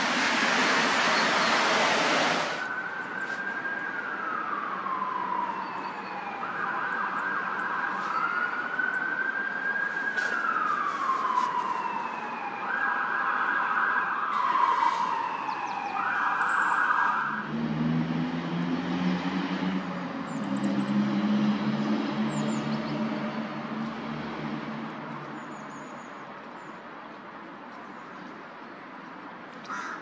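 A siren sounding from about three seconds in to about seventeen seconds in, repeating a held tone that sweeps down in pitch, alternated with short steady tones. Before it, a loud rushing noise stops after about two seconds. After it, a low engine hum lasts several seconds.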